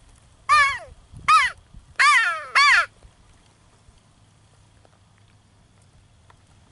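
A crow cawing four times in quick succession, each call dropping in pitch, the last two nearly back to back.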